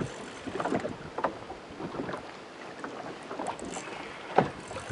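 Wind on the microphone and choppy water lapping against a small boat's hull, with scattered light knocks and one sharp knock near the end.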